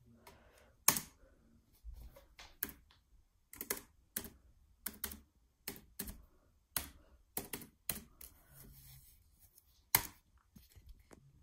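Laptop keyboard keys pressed one at a time: separate sharp clicks at an irregular pace of about two a second, with two louder clicks about a second in and near the end.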